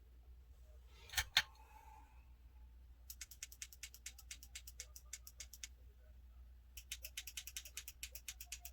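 Small plastic button on a ring light's brightness controller clicked over and over, stepping the light brighter: two louder clicks about a second in, then fast even runs of clicks, several a second, with a short pause just before the end.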